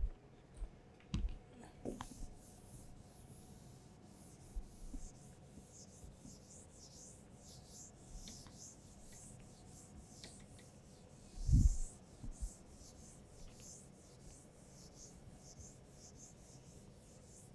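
Handheld whiteboard eraser wiping a whiteboard in quick repeated back-and-forth strokes, a soft, hissy rubbing. A few low thumps come near the start, and the loudest comes about eleven and a half seconds in.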